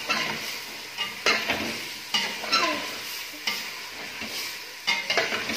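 Chicken pieces sizzling as they fry in hot oil in a stainless steel pot on high heat, the bhuna stage of browning. A metal spoon scrapes and knocks against the pot at irregular intervals as the chicken is stirred.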